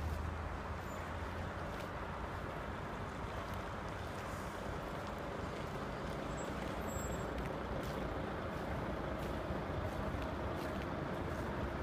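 Volvo FH13 tractor unit's diesel engine idling steadily, an even low rumble.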